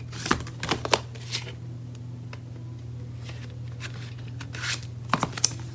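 Eyeshadow palettes being handled and set down on a stack: a few sharp taps and clicks in the first second or so and a quick cluster of them near the end, over a steady low hum.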